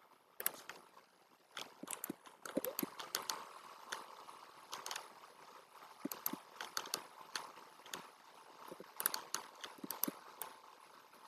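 Faint, irregular clicking of a computer mouse and keyboard being worked, sometimes single clicks and sometimes quick runs of several.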